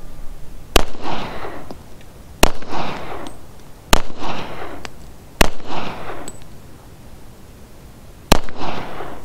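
Five pistol shots from an EAA Witness Elite in .40, about a second and a half apart with a longer pause before the last, each followed by a short echo.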